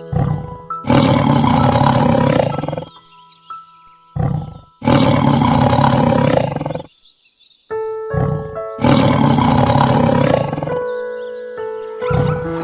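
A big cat roaring three times, each roar about two seconds long and evenly spaced, over background music with held notes.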